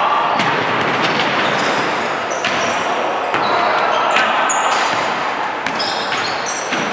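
Basketball game on a hardwood gym floor: the ball bouncing as a player dribbles and sneakers squeaking in many short high-pitched chirps, over a crowd of spectators chattering, all echoing in the large hall.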